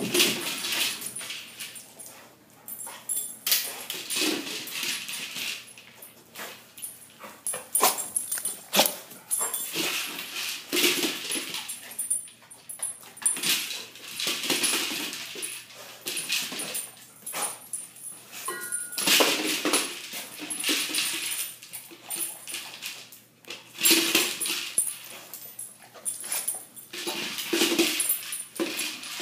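A dog nosing and pawing a food-dispensing ball around a hard floor: irregular bursts of rattling, knocking and scraping a few seconds apart, with the dog's own sounds mixed in.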